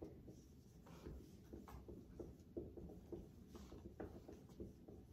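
Dry-erase markers squeaking and tapping faintly on a whiteboard as words are written, in short irregular strokes.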